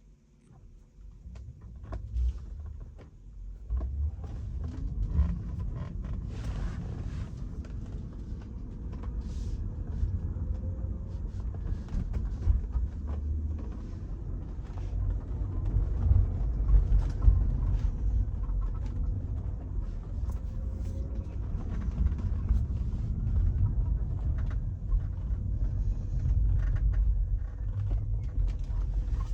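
Tesla driving with a steady low road rumble, and short squeaks and creaks coming and going throughout, noises that appeared after a service.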